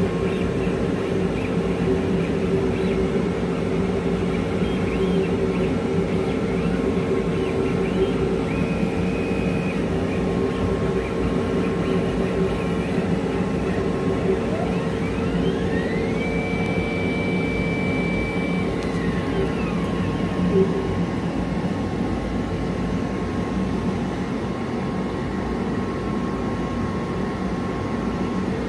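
Glowforge Pro laser cutter running: a steady whir from its fans and air handling. Over it, the head's motors whine up in pitch, hold and come back down as the head travels: briefly about 8 seconds in, and longer about halfway through.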